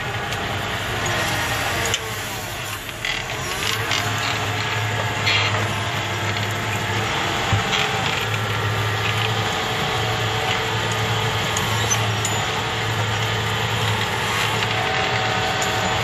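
Tractor engine running steadily under load, pulling a mounted reversible plough through hard ground, heard from the cab, with a few scattered clicks and rattles.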